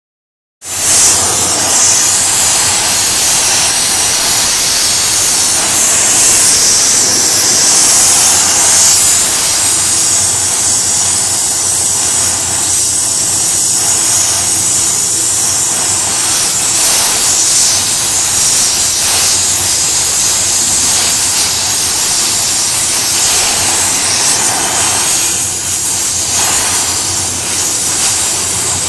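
Oxy-acetylene welding torch flame hissing steadily.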